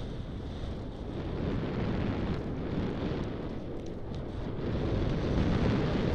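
Wind rushing over a helmet camera's microphone, with the rumble of a mountain bike rolling fast over a dirt trail and a few light clicks.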